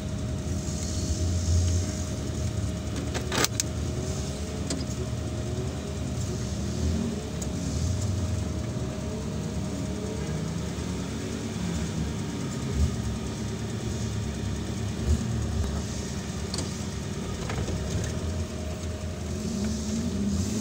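Off-road 4x4 engine running at low revs, rising and falling slightly as the vehicle creeps along a trail, heard from inside the cabin. A single sharp click comes about three seconds in.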